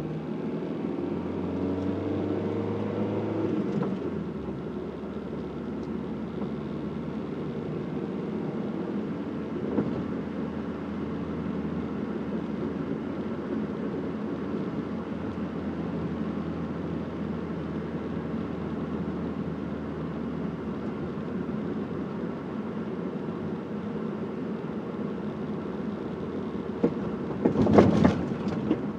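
Car driving, with steady engine and road noise. The engine pitch rises over the first few seconds as it accelerates, then evens out. Near the end there is a brief loud burst of noise.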